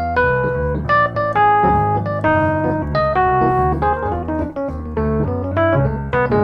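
Two digital pianos playing together: a medium-tempo jazz blues in F, with a walking low bass line under chords and melody, several notes struck each second.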